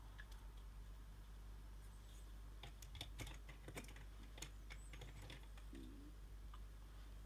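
Near silence with a steady low hum, broken in the middle by a quick run of faint clicks and taps lasting about three seconds.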